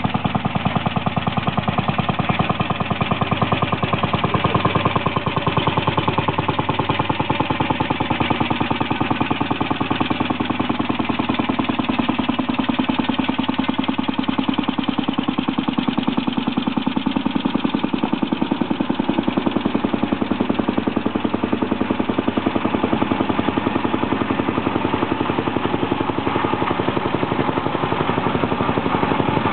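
Vintage tractor engines running as the tractors drive past, with a fast, even firing beat that goes on without a break.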